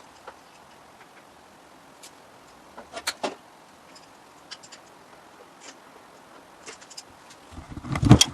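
Scattered light clicks and knocks of tools and parts being handled, with a few sharper ones about three seconds in. A louder low thump and rumble comes just before the end.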